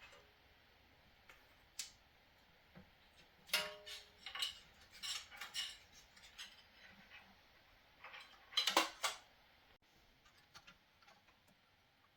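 Small metal hardware parts clinking and clicking as they are handled, a few taps leaving a short metallic ring, in irregular clusters with the loudest burst about nine seconds in.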